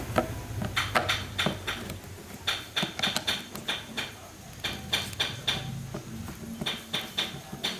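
Light metallic clicks and taps in quick clusters of three to five, like small metal parts or hand tools being worked, over a low hum that comes and goes.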